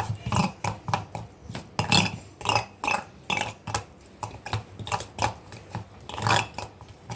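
A spoon stirring a wet paste of herbal powders and water in a small pan: quick, uneven scrapes and clinks of the spoon against the pan, about three strokes a second.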